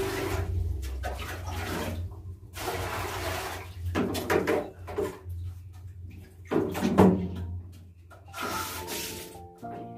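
Water splashing as it is scooped and poured with a plastic dipper over a basin, echoing in a small tiled bathroom, with scattered handling knocks and a sharp knock about seven seconds in. Background music starts near the end.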